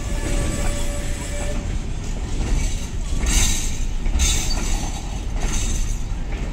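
Freight train rolling past, a steady loud rumble of wagons on the track with a hissing surge every second or so.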